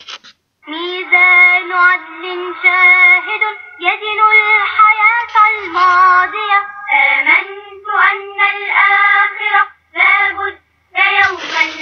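Children singing a nasheed, a single sung melody in short phrases with brief pauses between them.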